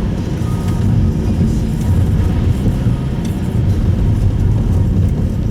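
Steady low road and tyre rumble with engine noise inside the cabin of a Subaru Impreza Sport driving on a snowy road.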